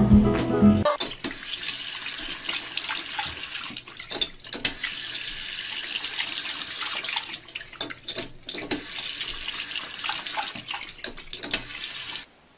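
Water running from a bathroom sink faucet, a steady splashing hiss with a few brief dips that cuts off suddenly near the end. Background music is heard for the first second.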